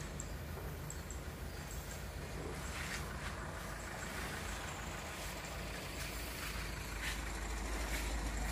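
An engine running steadily with a low hum that grows a little louder near the end, with a few faint clicks on top.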